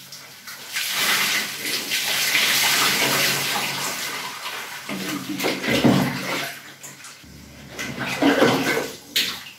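Water poured from a plastic tub over lathered hair to rinse it: a steady rush of running water for the first few seconds, then two heavier splashes, about five and eight seconds in.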